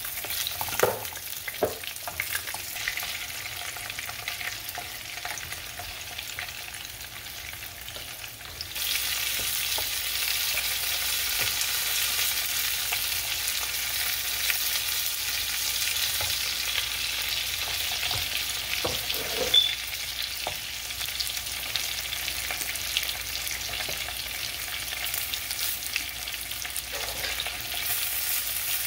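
Egg-and-cornstarch-battered shrimp frying in hot oil in a pan, sizzling steadily while a wooden spoon turns them, with a couple of knocks near the start. The sizzle gets louder about nine seconds in.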